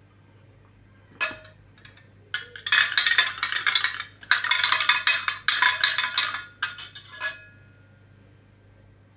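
Rapid clinking and knocking of hard kitchen utensils, starting about a second in, densest from about three to seven seconds, then stopping with a brief ringing.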